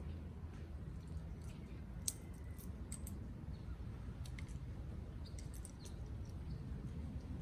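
Amazon parrot cracking pistachio shells with its beak: sharp, irregular clicks and cracks, the loudest about two seconds in, over a low steady rumble.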